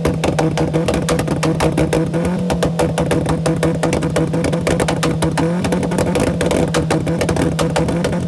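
Toyota Corolla engine held at steady high revs, its pitch stepping up slightly about five seconds in. Over it comes a rapid, continuous run of crackling pops from the exhaust as it spits flames and sparks.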